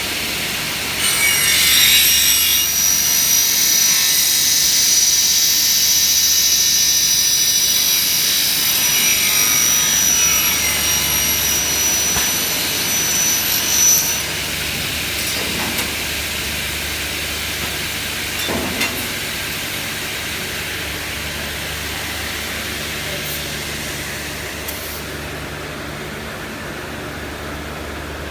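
Double-head aluminium cutting saw, the Faster F88, cutting an aluminium profile: a loud high-pitched whine from about a second in, which stops about fourteen seconds in. After that the machine keeps running with a quieter steady hum and a couple of short knocks.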